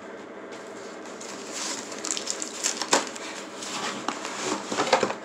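Rustling and scattered clicks from a cardboard mystery box and the bagged comic books inside being handled as it is unpacked, with a sharper tap about three seconds in and more near the end.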